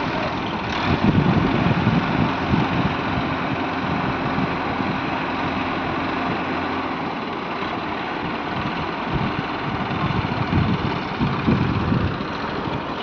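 Engine of heavy construction machinery running steadily, with an uneven low rumble throughout.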